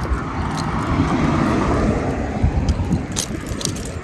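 Wind buffeting the phone's microphone in a choppy low rumble, with street traffic passing; a car's noise swells and fades about halfway through.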